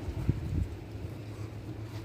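Wind buffeting the microphone in a snowstorm, a steady low rumble, with two dull thumps within the first second.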